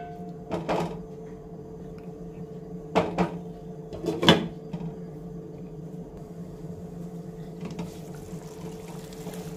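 A glass lid set down on a nonstick frying pan of simmering gravy: a short knock just after the start, then two sharp clinks about three and four seconds in. A steady low hum runs underneath.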